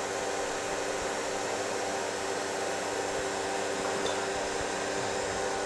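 Vacuum pump of a CNC router's vacuum table running steadily, pulling suction through one zone of the table: an even airy rush with a constant hum.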